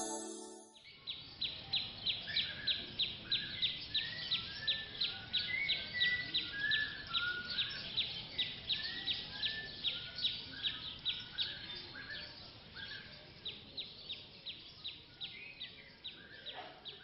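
Recorded forest ambience: an even run of sharp, high chirps, about three a second, with scattered bird calls over it. A stretch of music fades out in the first second, and the chirps thin out near the end.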